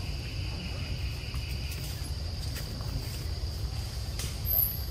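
Forest insects droning in one steady high tone over a low rumble, with a second, fainter insect tone for the first couple of seconds. A brief, very high chirp sounds near the end.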